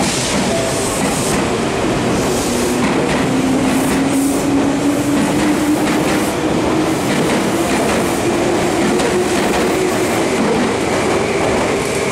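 Meitetsu 1200 series electric train pulling out alongside the platform. A steady motor whine rises slowly in pitch as it gathers speed, over the rumble of the cars and wheels clicking across rail joints.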